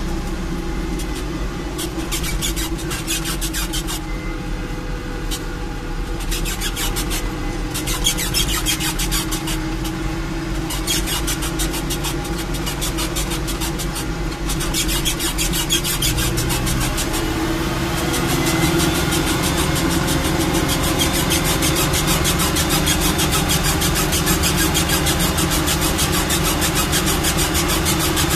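Landini Rex tractor's diesel engine running under load on the road, heard from inside the cab. It is a steady engine note that shifts and grows louder about two-thirds of the way through.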